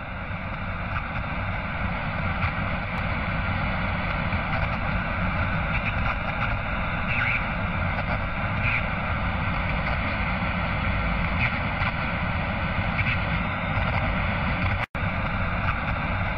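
A steady rushing, rumbling noise with no speech, cutting out for an instant near the end.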